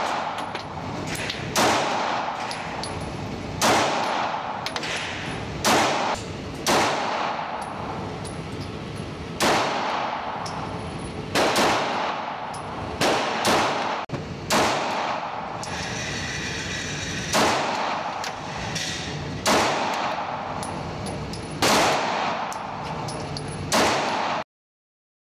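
Smith & Wesson M&P Shield EZ pistol fired slowly, about a dozen single shots one to two seconds apart, echoing in an indoor range. A short ringing tone comes about two-thirds of the way through, and the sound cuts off just before the end.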